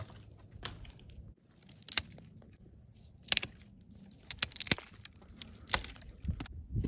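Dry dead twigs and brush snapping and crackling as they are broken by hand, with about half a dozen sharp cracks spread over the few seconds and rustling between them.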